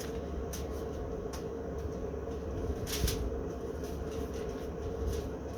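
Steady low rumble with a constant hum, and a few brief rustles as brown sugar is shaken out of its bag onto foil.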